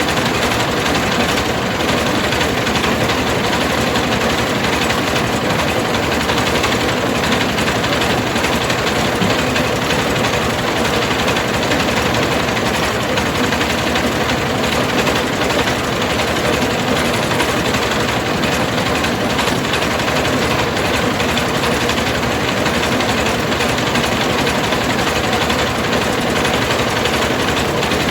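Mobile rice mill running: its engine and milling machinery make a loud, steady mechanical din without a break.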